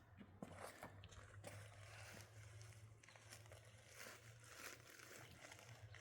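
Near silence: faint background with a low steady hum and a few soft ticks.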